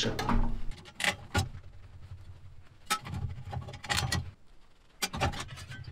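Knocks and sharp metallic clicks as a snowblower auger's steel shaft and paddles are handled and turned over on a metal workbench during disassembly. About half a dozen scattered clicks over low handling rumble.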